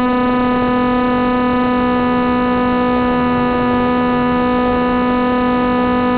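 Wing Wing Z-84's electric motor spinning its propeller at a steady speed, a constant buzzing hum with no change in pitch.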